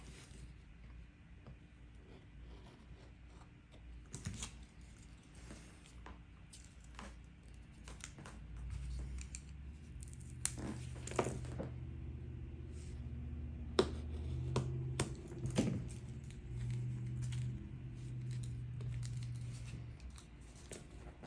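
Scattered clicks, taps and scratches of small hard objects handled at a desk while a taped-up key package is being opened, with a low hum coming in about eight seconds in.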